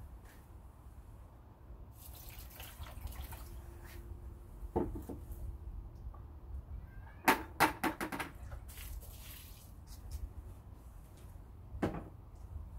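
Water sloshing and splashing from a plastic bucket as a plastic litter box is rinsed, with a few sharp knocks. The loudest is a quick cluster of about four knocks a little past halfway.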